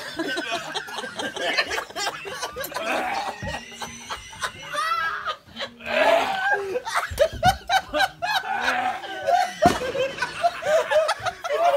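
Several men laughing hard, in bursts, with shouts and short knocks of movement among the laughter.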